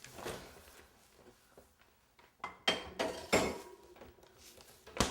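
Hard kitchen objects clinking and clattering as they are handled: a soft rustle at first, a quick run of sharp knocks and clinks around the middle, and one more sharp knock near the end.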